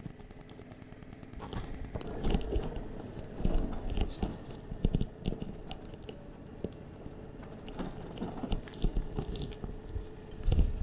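Motorcycle tyres crunching over loose gravel on a dirt track, with irregular crackles and knocks from stones under the wheels and a low engine rumble beneath.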